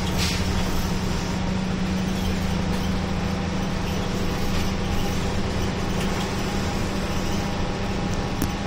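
West JR route bus heard from inside its cabin while driving at a steady speed: a steady low engine hum over tyre and road noise on a wet road.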